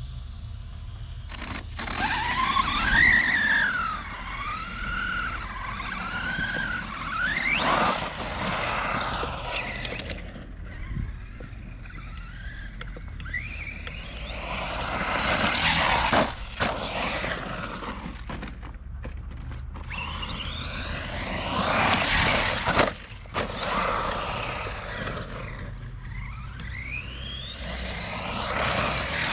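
Brushless electric motor of a Redcat Camo TT Pro RC trophy truck on a 3S LiPo, whining up and down in pitch in repeated bursts of throttle as it accelerates and slows, with its tyres scrabbling over loose dirt. A couple of sharp knocks come about two thirds of the way through.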